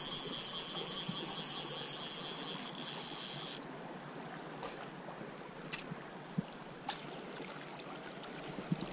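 Flowing river water under a high, steady buzz that cuts off abruptly about three and a half seconds in. Two or three sharp clicks follow, and there is some splashing near the end as a hooked fish is brought to the net.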